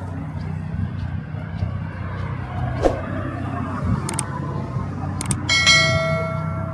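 City street traffic with a steady low rumble of vehicles and a few short clicks. About five and a half seconds in, a steady high pitched tone sounds for just over a second.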